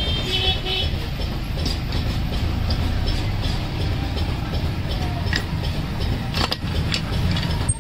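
A steady low engine rumble runs throughout, with a few short sharp metal clicks as transmission gears and shafts are set into an aluminium motorcycle crankcase half.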